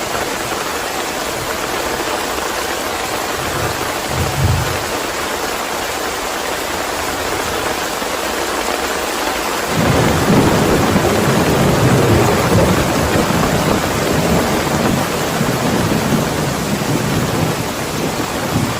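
Steady heavy rain with a brief low thunder thump about four seconds in, then a long rumble of thunder that starts suddenly about halfway through and carries on under the rain.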